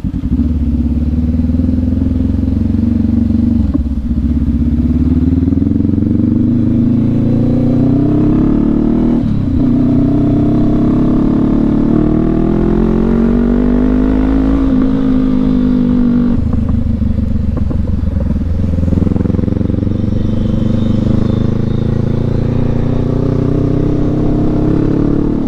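Motorcycle engine under way, heard from on the bike. Its pitch climbs steadily and drops sharply about 4 and 9 seconds in, like upshifts, then falls back around 16 seconds and runs steadier.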